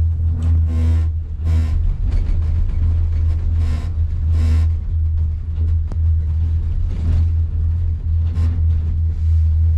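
Loud, steady low rumble, with faint voices rising briefly now and then.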